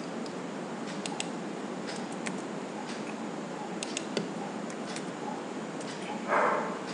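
Scattered, irregular clicks of a computer keyboard and mouse as figures are typed into a spreadsheet-like form, over a steady low hiss; a brief vocal sound comes near the end.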